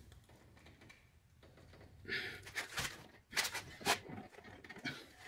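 Quiet at first, then from about two seconds in a string of short, sharp breathy exhalations and grunts from a man straining on a wrench. He is trying to break loose a very tight front brake caliper bolt.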